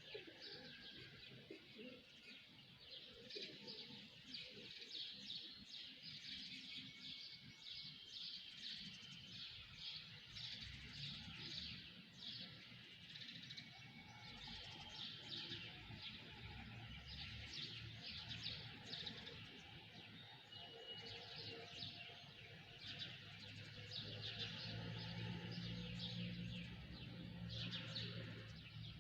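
A chorus of small birds chirping and twittering, with many rapid short chirps overlapping throughout. A low steady hum comes in underneath about two-thirds of the way through.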